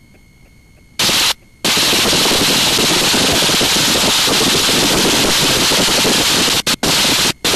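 Loud rushing wind blast with crackling buffeting on an exterior action-camera microphone on an open-cockpit biplane in flight. It cuts in suddenly about a second in after a quiet start, drops out briefly, then runs on loud with a few short dropouts near the end.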